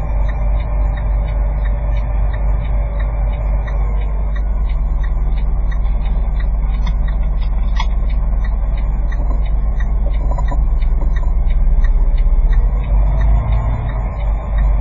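Vehicle engine and road rumble heard from inside a slowly moving cab, low and steady, with a regular ticking about twice a second and one sharper click about halfway through.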